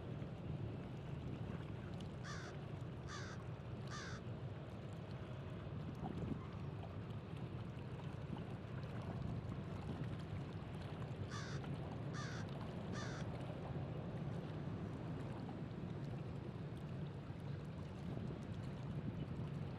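Steady low rush of wind and water at the shore, with a bird's harsh calls in two runs of three, about nine seconds apart.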